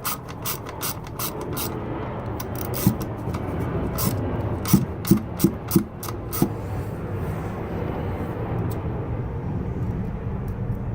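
A hand ratchet clicks in quick regular strokes as it turns down the bolt of a valve spring compressor. A few separate sharp metallic clicks follow in the middle, over a steady background hum.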